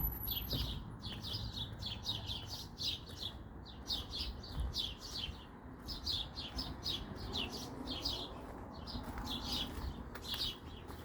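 A small bird chirping in quick, high, repeated notes, a few a second without a break, over a steady low rumble.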